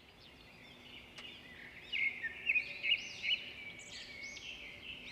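Small birds chirping and twittering, many short high calls overlapping, busier and louder from about two seconds in.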